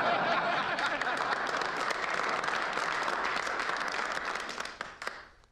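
A table of men applauding together: dense, many-handed clapping with some voices mixed in. It fades away after about five seconds.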